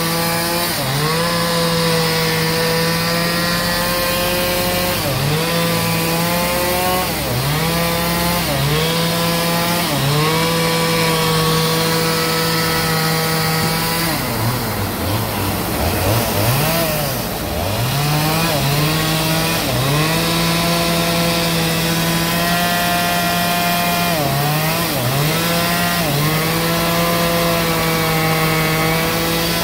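A power saw cutting through a very large log: a steady motor sound whose pitch sags and recovers again and again as the cut loads it, with the deepest sag about halfway through.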